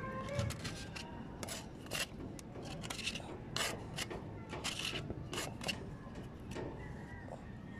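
Paint-covered putty knife scraping and knocking against the rim of a metal paint can: a run of short scrapes and clicks that thins out after about six seconds.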